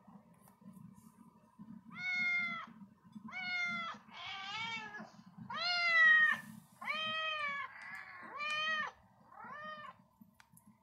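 A cat meowing seven times in a row, each meow short and arching up then down in pitch, the fourth the loudest.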